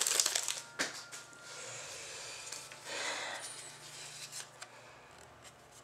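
Trading cards and their pack wrapper being handled: crinkling at the start, a sharp tick about a second in, then soft rubbing and rustling of cards being slid apart, fading toward the end.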